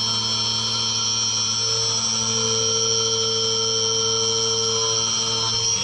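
Mini CNC vertical milling machine cutting aluminium with a 90° chamfer tool at about 7000 rpm under flood coolant: a steady high spindle whine over a constant low hum, with the coolant spraying.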